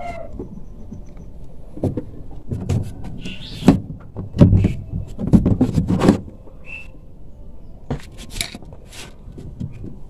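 The plastic rear access panel of a twin-tub washing machine being unfastened and pulled off by hand: scattered clicks and knocks, then a burst of loud plastic clattering and scraping about four to six seconds in.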